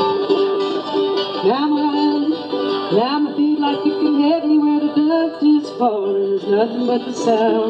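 Live acoustic folk song: a woman singing a melody that slides up into its notes, accompanied by strummed acoustic guitar and mandolin.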